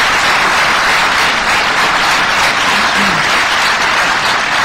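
Audience applauding loudly and steadily after a line of the poem.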